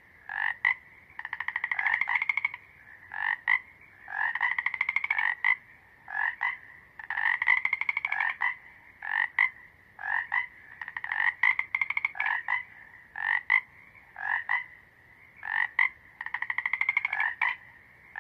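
Frogs croaking: long, rapidly pulsed trills about a second and a half each, alternating with short single or double croaks, the pattern repeating about every three seconds.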